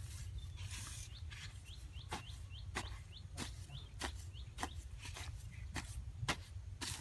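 Sharp knocks at a steady rhythm, about one every two-thirds of a second. From about one and a half to four seconds in, a bird chirps repeatedly, short rising chirps in quick succession.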